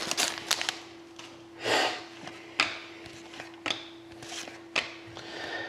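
Hockey trading cards and packs being handled: soft swishes of cards sliding against each other and about three sharp clicks as cards are tapped or set down.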